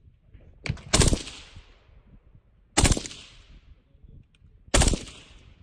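Suppressed rifle fired in three short bursts of a few rounds each, about two seconds apart. Each burst is a quick cluster of sharp cracks followed by a fading echo.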